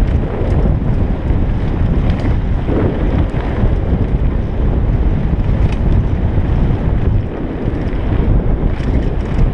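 Wind buffeting a helmet camera's microphone during a fast mountain-bike descent, with bike tyres rumbling over a dirt trail. A few sharp clicks and rattles from the bike come through the noise.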